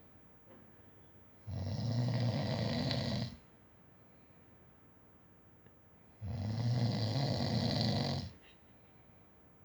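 A man snoring: two long snores, each about two seconds, coming about five seconds apart with a quiet pause between.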